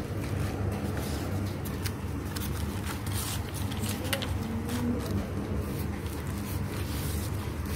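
Paper pages of a book being turned by hand, with short crisp rustles and crinkles, over a steady low rumble.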